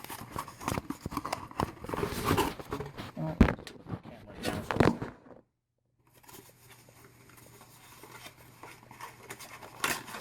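Hands handling small parts and packaging: a run of clicks, taps and rustles. About five seconds in the sound cuts out completely for a moment, then comes back as a faint steady hum with scattered light ticks.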